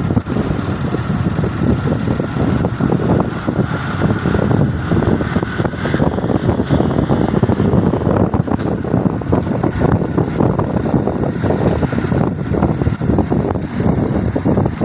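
Wind buffeting the microphone over the rumble of a moving vehicle, loud and steady throughout.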